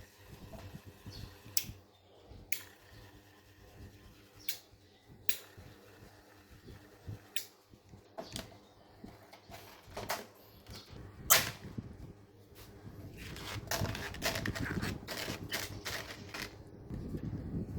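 Tools and small metal parts clicking and tapping, a few scattered sharp clicks at first with one loud knock a little past the middle, then coming thicker over a low rumble in the last few seconds.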